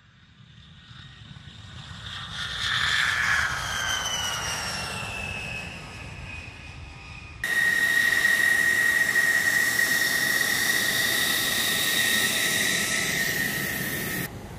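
A-10 Thunderbolt II's twin turbofan engines swell as it takes off past, their whine falling in pitch as it goes by. About seven seconds in this cuts abruptly to an F-16's jet engine whining loud and steady at taxi, close by, which cuts off just before the end.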